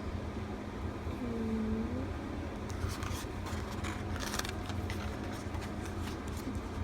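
Light rustling and clicking of album inserts and photo cards being handled, clustered about three to four seconds in, over a steady low background hum. A brief low tone that dips and rises comes about a second in.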